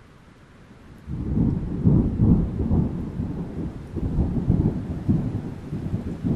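Thunder: a low rolling rumble that sets in about a second in and keeps going, swelling and fading.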